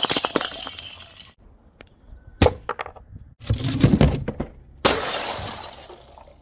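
Glass bottles smashing, several separate breaks one after another, each a sharp crash followed by shards clinking and tinkling as they scatter. The breaks start and stop abruptly, as if cut together one after another.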